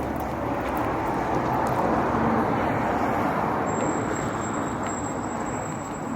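Road traffic noise: a vehicle passing by, its sound swelling to a peak about two seconds in and then fading.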